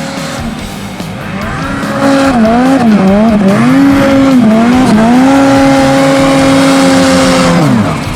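Snowmobile engine revving up and down several times, then held at high revs for a few seconds before the throttle is let off near the end.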